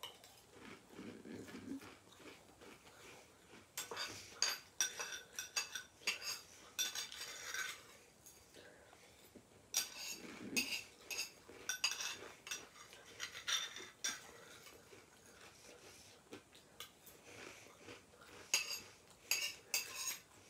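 A spoon clinking and scraping against a bowl in short, irregular runs of clinks while someone eats from it.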